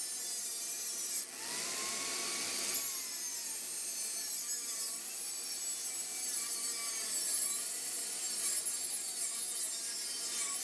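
Angle grinder with a cut-off disc cutting through lawnmower-blade steel: a steady whine and hiss of the disc in the metal. The motor's whine wavers as the disc bites into the cut.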